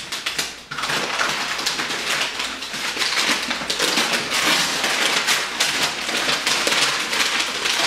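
Paper wrapping crinkling and tearing continuously as a book is unwrapped by hand, starting just under a second in.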